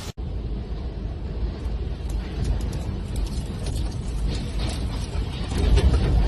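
Storm wind gusting hard against the microphone as a low, rumbling buffet, with faint scattered ticks and rattles; a stronger gust swells near the end.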